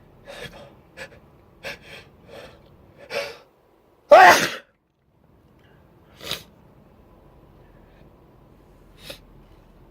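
A person's uncovered sneeze: a run of short catching breaths that build in loudness, then one loud, voiced sneeze about four seconds in, followed by two short breaths afterwards.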